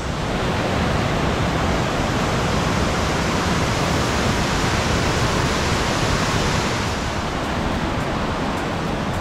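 Potomac River white water pouring down the rocky cascades of Great Falls: a steady, loud rush of water.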